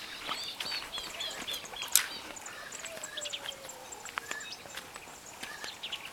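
Small birds chirping outdoors, with a quick run of repeated chirps in the first second and a half, scattered clicks, and one sharp knock about two seconds in.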